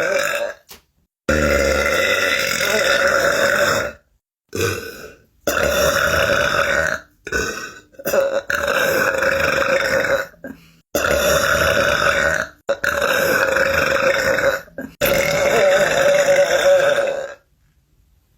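A string of long, drawn-out human burps, about eight in a row, each lasting one to two and a half seconds at a steady pitch, with short silent breaks between them.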